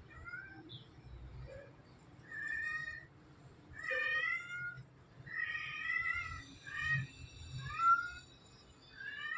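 A cat meowing repeatedly: about six or seven short, high-pitched meows, some rising and falling in pitch.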